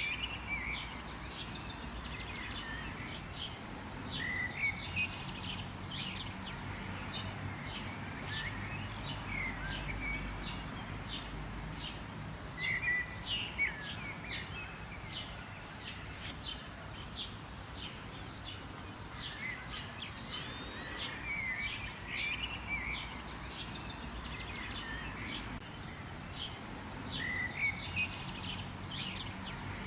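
Birds chirping and calling, many short repeated chirps and quick whistled notes overlapping throughout, over a steady background hiss and a low rumble.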